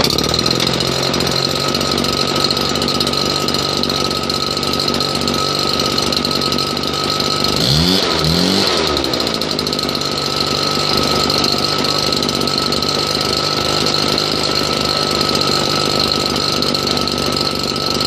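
Husqvarna 580BTS backpack blower's two-stroke engine running steadily with a fan whine, revving up and back down twice in quick succession about eight seconds in. This is a test run of the engine after new kill switch wires were fitted.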